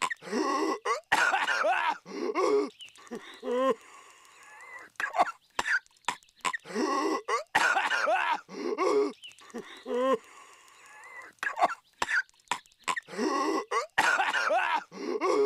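Cartoon character Patrick Star coughing violently: harsh hacking coughs broken by raspy, wheezing gasps. The same few seconds of coughing repeat about every six and a half seconds, as a loop.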